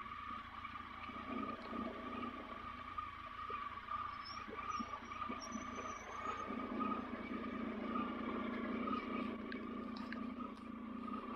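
Dual-sport motorcycle running steadily at low speed, heard as a faint, even drone.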